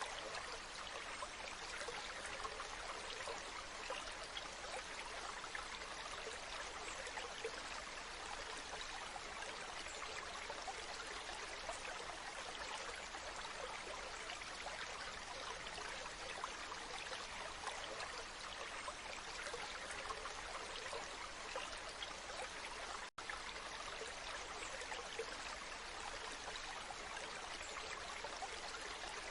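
Waterfall: a steady rush of falling water, which cuts out for an instant about three-quarters of the way through.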